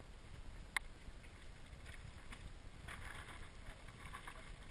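Low wind rumble on the microphone, with one sharp click about three-quarters of a second in and faint scrapes and rattles around three seconds in.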